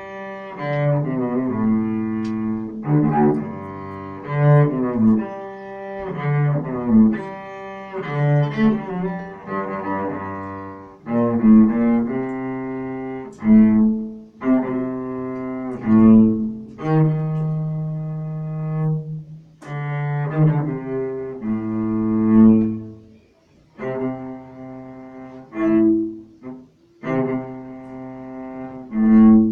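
Solo cello played with the bow: a melody of held notes, with a few short pauses between phrases in the second half.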